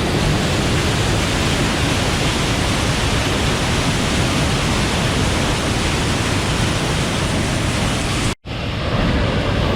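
Loud, steady rush of a waterfall and fast creek water. It cuts out completely for an instant about eight seconds in, then comes back slightly duller.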